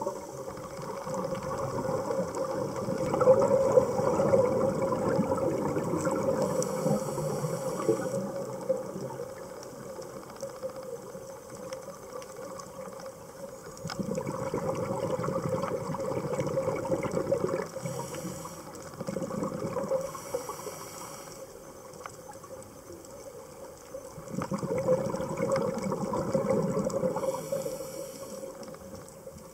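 Scuba regulator breathing underwater: several long surges of exhaled bubbles, a few seconds each, separated by quieter pauses for the inhale.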